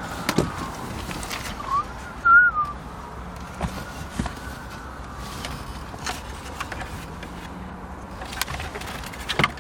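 Distant siren wailing slowly and fading away, with a short wavering whistle about two seconds in and scattered small clicks.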